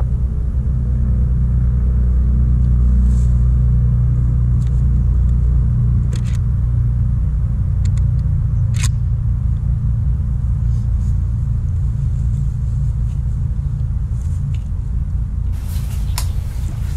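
A low, steady rumble with a few short sharp clicks and knocks on top, the clicks coming as a shotgun is handled and set on shooting sticks.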